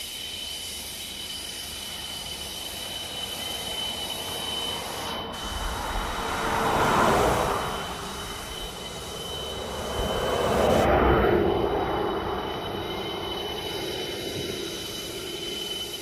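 Two vehicles pass by on a highway one after the other, their tyre and engine noise swelling up and fading away, loudest about seven and eleven seconds in.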